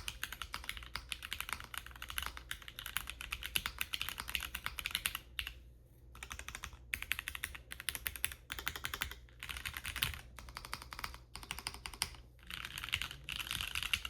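Typing on a KBDFans Agar Mini mechanical keyboard with a polycarbonate case, carbon fibre plate, Cherry Nixie switches, PBTfans X-Ray keycaps and case foam: rapid runs of keystrokes broken by a few short pauses.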